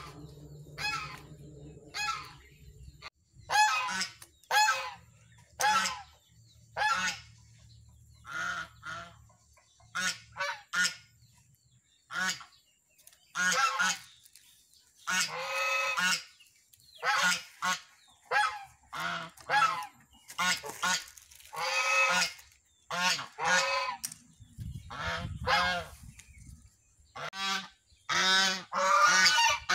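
White domestic geese honking over and over, a long series of short pitched calls coming one or two a second, with louder runs of calls in the second half.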